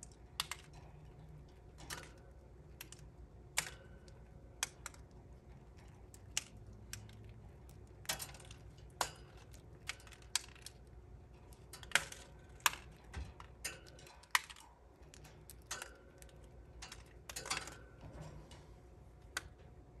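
Budgerigars' beaks biting and cracking seeds from a hand-held seed cookie: irregular sharp clicks and crunches, a few every couple of seconds.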